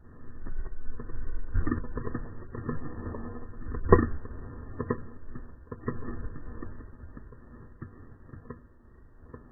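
Slowed-down gunshot from a wild boar hunt: one dull, muffled bang about four seconds in, with scattered softer knocks before and after it.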